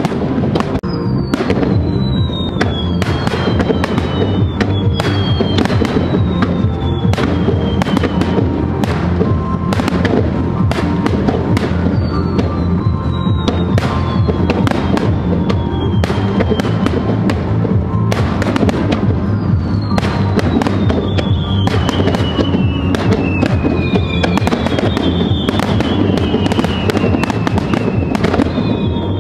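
Fireworks display: shells bursting in quick succession, with a string of falling whistles every couple of seconds.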